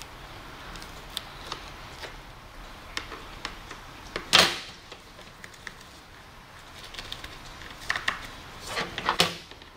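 Screwdriver prying apart the plastic shell of a 2005 Toyota Sequoia sun visor and peeling off its glued fabric cover: scattered small clicks and creaks, a loud sharp crack-and-tear about four seconds in, and a few more near the end. The halves resist because they are heat-welded together.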